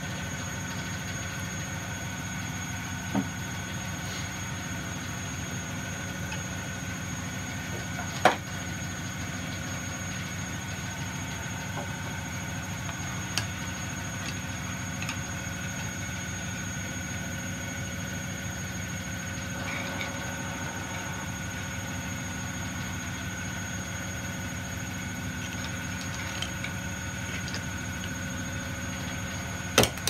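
Steady background hum with a faint high whine, broken by a few sharp clicks of metal screwdrivers prying at a plastic washing machine pump housing held in a vise: single clicks about 3, 8 and 13 seconds in, and a quick cluster near the end as the part comes free.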